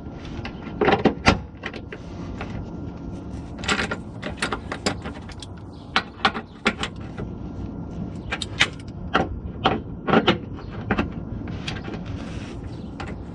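Hand ratchet with a 15 mm socket working a chassis bolt under a car: irregular runs of sharp metallic clicks from the ratchet's back strokes, with the odd knock of the tool against the underbody.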